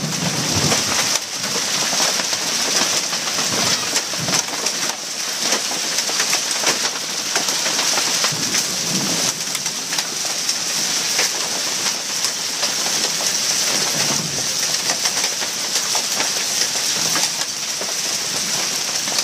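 Heavy rain falling steadily, a dense patter of drops striking hard surfaces.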